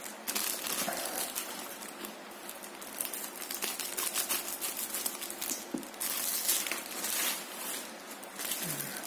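Plastic courier mailer bag crinkling and rustling as it is handled and cut open with scissors, and the bubble-wrapped box inside is pulled out.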